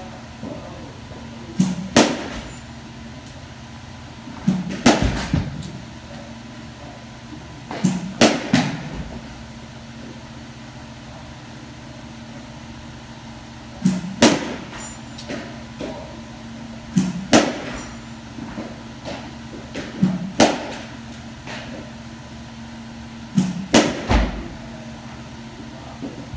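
Softball bat hitting softballs, seven swings a few seconds apart, each contact a sharp crack with a second knock close behind it, over a steady low hum.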